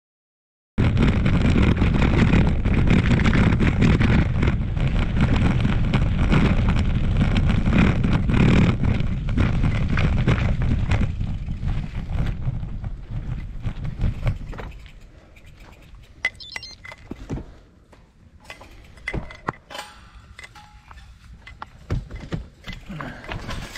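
A bicycle being ridden on a gravel track, with a steady rush of wind on the microphone and tyre noise. About two-thirds of the way through this drops to a much quieter run of scattered crunches and clicks as the bike rolls very slowly.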